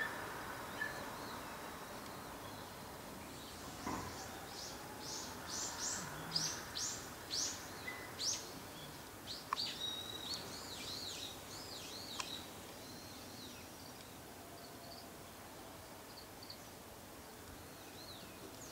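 A small bird singing outdoors: a run of high, quick falling notes at about two a second, then a few higher warbling notes, starting a few seconds in and stopping about two-thirds of the way through. A faint steady background hiss runs under it.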